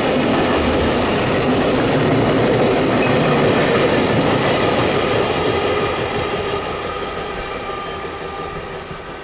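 Freight train of Koki container flatcars rolling past, steady wheel-on-rail noise with some clatter over the rail joints. The noise fades over the last few seconds as the end of the train goes by.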